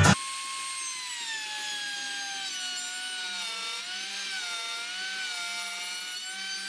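Makita palm router running and cutting a groove in a wooden frame. Its motor whine drops in pitch over the first couple of seconds, then wavers as the bit is pushed along the cut under load.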